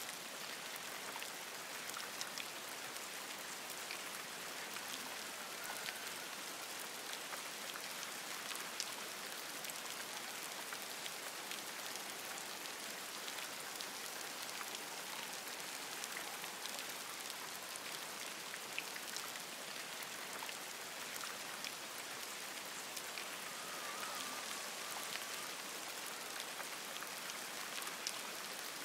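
Steady rain falling on forest leaves, a constant patter with many individual drops ticking through it.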